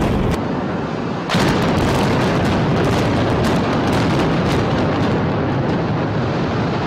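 A rapid string of explosive demolition charges cracking as a high-rise is imploded, starting suddenly about a second in, then giving way to the rumble of the tower collapsing.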